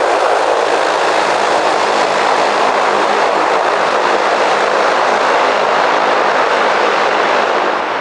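ATR-42 twin turboprop engines and propellers running with a loud, steady rushing drone and a faint steady hum underneath, easing slightly near the end.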